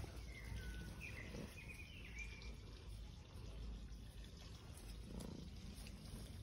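Quiet outdoor ambience: a steady low rumble with a few short, high chirps in the first two and a half seconds.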